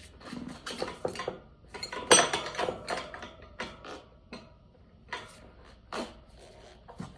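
Metal tire-changing tools clinking, knocking and scraping against a dirt bike wheel rim as the tire bead is levered on, in irregular sharp strokes. The loudest knock comes about two seconds in.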